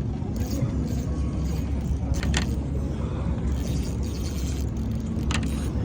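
Boat engine running at a steady low rumble, with two short sharp clicks, one about two seconds in and one near the end.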